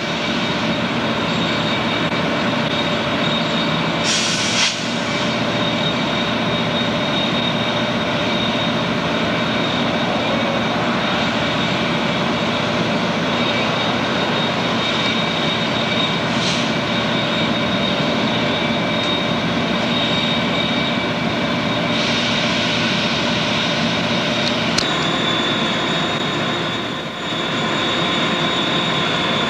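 Locomotive running in a rail yard: a loud, steady mechanical drone with a constant high whine. Short hisses come about four seconds in and again near sixteen seconds, and the whine steps slightly lower in pitch around twenty-five seconds.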